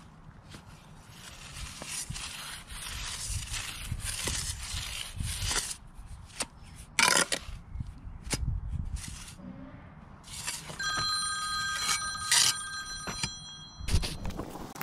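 Steel trowel scraping and slapping wet sand-and-cement mortar along the top of a stone wall, with sharp knocks as the blade strikes the stone. About eleven seconds in, a steady ringing tone sounds for a couple of seconds.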